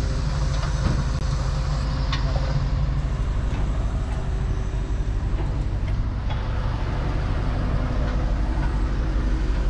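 Heavy diesel engine running steadily at constant speed, with a few faint clicks over it.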